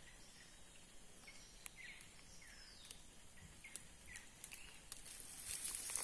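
Scattered short, faint chirps from a flock of great-billed seed-finches (bicudos), roughly one or two a second, with a few sharp clicks among them. Near the end a louder rustling of leaves comes in.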